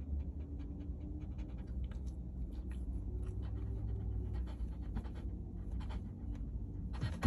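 Mini cockapoo panting quickly and steadily, short breath after short breath.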